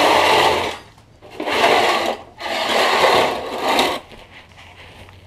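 A tool working on the nut of a rear sway bar link under a Subaru Forester: three bursts of rapid mechanical buzzing, each about a second long, with short pauses between.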